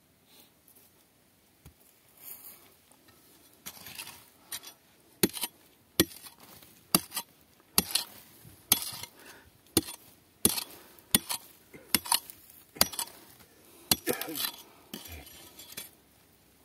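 A steel-headed hammer striking a pegmatite rock face with calcite, in a run of sharp clinking blows, roughly one a second, starting a few seconds in and continuing until near the end.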